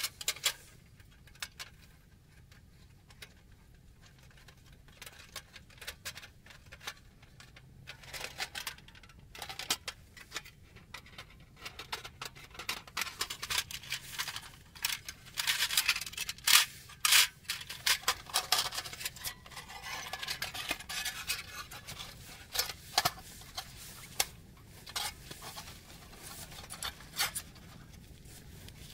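Metal parts of a folding stainless-steel NCamp camp stove clinking, scraping and rattling as they are unfolded and fitted together by hand, a scattered run of small clicks and knocks that is busiest in the middle.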